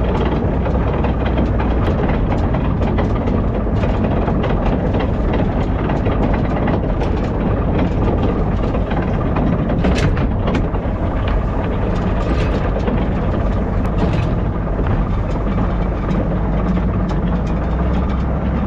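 Heavy farm vehicle running under load, a steady low engine drone with continual rattling and clanking of machinery, as used for the morning cattle feeding.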